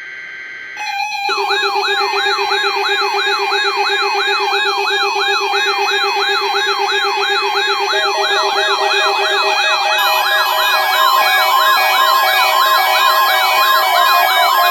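Several NOAA weather radio receivers sounding their alert alarms at once, set off by the weekly test broadcast: a fast warbling siren tone over steady beeps. More alarm patterns join about eight and ten seconds in.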